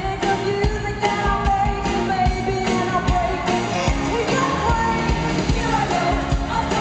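Live pop-rock band playing with women singing the melody over a steady drum beat, heard through the audience's concert recording.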